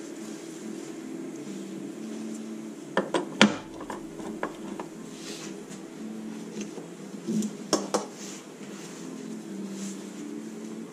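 Metal Suzuki SV650 engine parts clinking and knocking against each other and the bench as they are handled. There is a cluster of sharp clinks about three seconds in and two more just before eight seconds, over a steady low hum.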